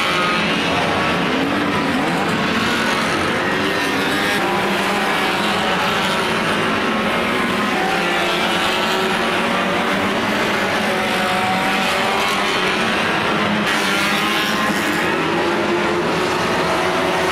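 Several 1500cc banger racing cars racing together, their engines revving hard with many overlapping notes rising and falling.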